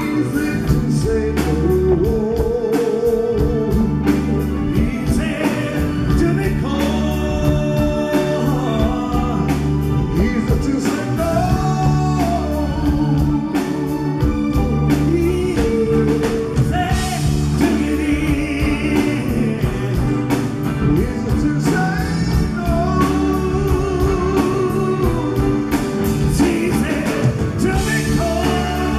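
Live rock band playing a song with lead vocals over electric guitar, bass, drums and keyboards, heard through the venue's sound system from the audience.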